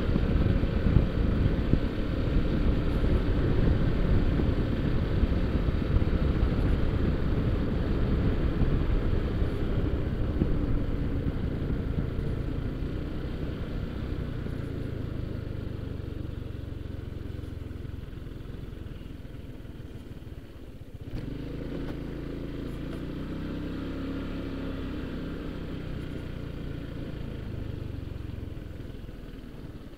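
Honda ADV150 scooter being ridden, with heavy wind noise on the microphone at first that fades as the scooter slows. In the second half its small single-cylinder engine is heard running at low speed.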